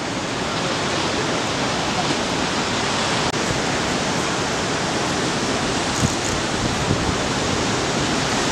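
Steady, even rush of ocean waves breaking and whitewater churning over a rocky reef point break.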